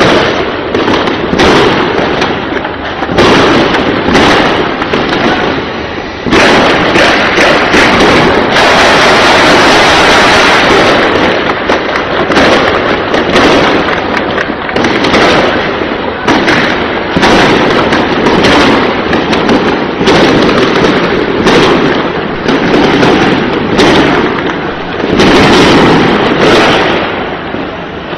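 Heavy small-arms gunfire in an armed clash: several weapons firing rapid shots and automatic bursts that run almost without a break, with one long unbroken burst about nine seconds in.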